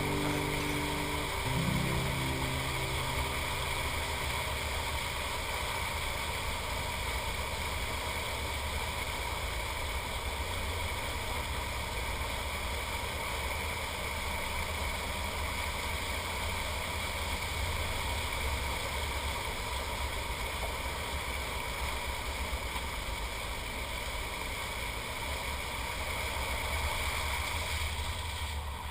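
A vehicle running steadily: a low rumble with an even rush of travel noise. The tail of a song fades out in the first few seconds.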